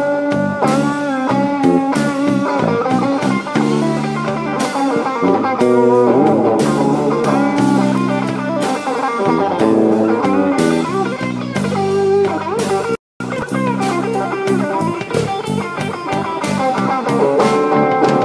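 Live slow blues played by electric guitar, bass guitar and drum kit, with the guitar bending its notes. The sound cuts out completely for a split second about two-thirds of the way through.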